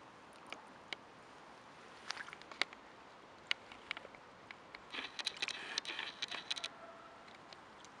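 Canada goose dabbling its bill in shallow water: a scatter of small splashes and clicks, thickest about five to six and a half seconds in.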